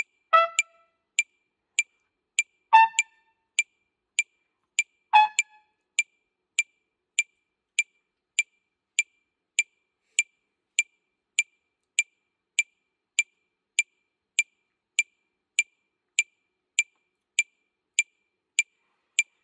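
Metronome clicking steadily at about 100 beats a minute. A trumpet plays three short, separate notes in the first six seconds, then rests while the metronome keeps ticking.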